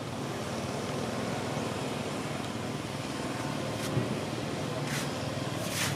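Steady low drone of motor-traffic noise, with three short sharp high clicks about four, five and six seconds in.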